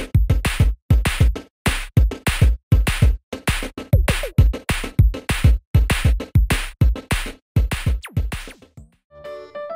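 Electronic music with a hard-hitting, fast drum-machine beat and deep kick drums. It stops about nine seconds in, and a light keyboard tune begins.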